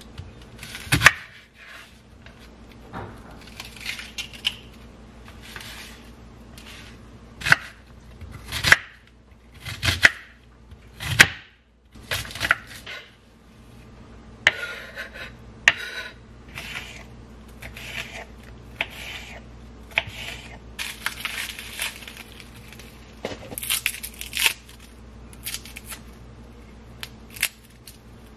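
Knife chopping red onion and bell pepper on a wooden cutting board: sharp knocks of the blade on the wood at irregular intervals, with softer cutting and rustling between them.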